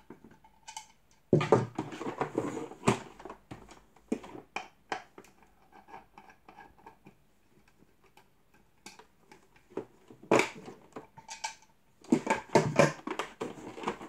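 Hard plastic knocks and clicks as the casing of a Dyson cylinder vacuum is handled while its wheel covers are unscrewed and lifted off. They come in irregular clusters with quiet gaps between.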